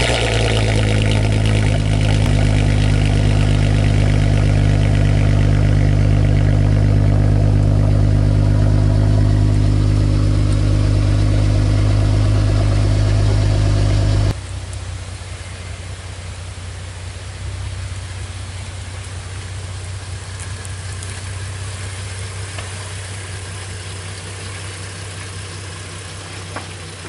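2008 Volkswagen R32's 3.2-litre VR6 idling steadily through its custom exhaust, loud and close at the twin tailpipes. About fourteen seconds in, the sound drops abruptly to a quieter steady idle heard from under the car.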